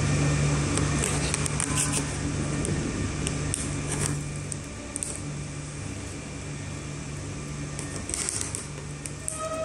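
Steady low hum of a running projector's cooling fan, with a few faint clicks.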